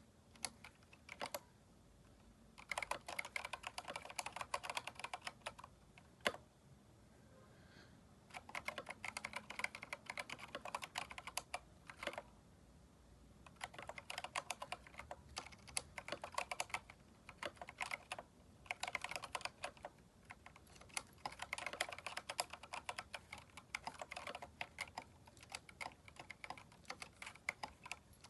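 Typing on a Keychron K4 mechanical keyboard fitted with aftermarket keycaps: runs of fast keystrokes separated by short pauses, with one louder single keystroke about six seconds in.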